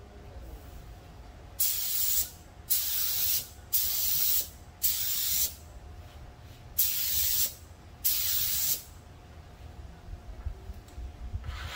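Air-driven gravity-feed paint spray gun hissing in six short bursts, one per pass, laying a light first coat of urethane automotive paint that is meant to dry tacky for the next coats. A low steady rumble runs underneath.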